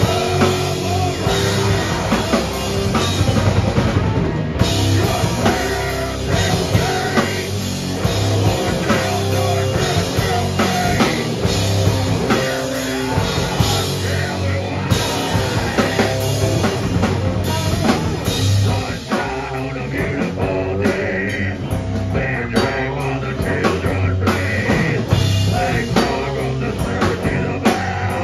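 A live heavy rock band playing loud: drum kit, electric guitar and bass guitar, with a singer's vocals over them.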